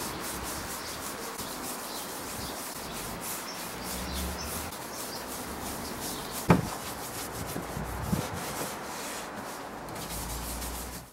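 A hand-held pad rubbing a nourishing finish into bare, stained pine boards in quick repeated strokes. There is a sharp knock about six and a half seconds in and a lighter one about a second and a half later.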